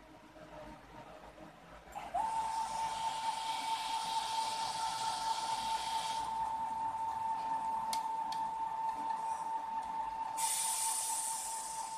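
Stepper motor of a DIY CNC rotary axis whining at one steady pitch as it turns the axis. The whine starts about two seconds in with a brief rise in pitch as the motor ramps up. A hiss comes and goes over it, and there are two sharp clicks about two-thirds of the way through.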